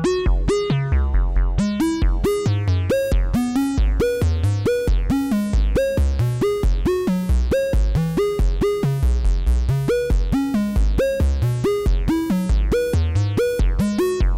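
Breadboarded analog synthesizer voice built around the LM13600 OTA, playing a fast repeating sequence of short notes, about four a second, over a low bass line. Each note has a bright filter sweep that closes quickly.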